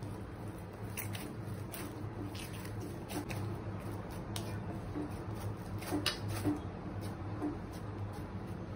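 Hands kneading soft rice-flour dough in a steel plate: soft squishing and pressing, with scattered short taps and scrapes against the metal, over a steady low hum.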